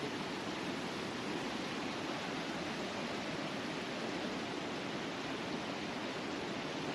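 Fast mountain river rushing over boulders and rapids: a steady, unbroken rush of water.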